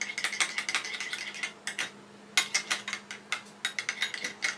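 A spoon stirring glue and shampoo in a container for slime, clinking and scraping against its sides in quick repeated strokes, with a short pause about two seconds in.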